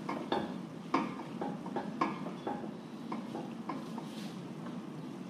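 Plastic slotted spatula clacking and scraping against a deep non-stick pan while stirring a chicken and vegetable filling, about ten light knocks in the first few seconds. A steady low hum runs underneath.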